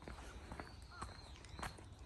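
Footsteps of a person walking at a steady pace down a paved path, soft scuffs about every half second, over a faint low rumble.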